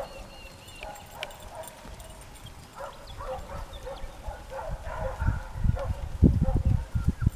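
Hooves of a small mob of cattle walking over a grassy paddock, with low rumbling knocks that grow louder from about five seconds in.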